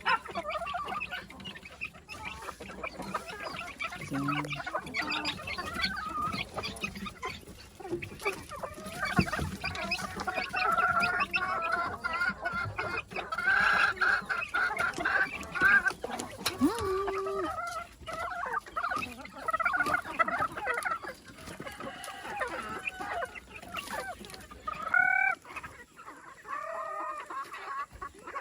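Many chickens clucking and calling together, a flock busy at feeding, with a rooster crowing now and then.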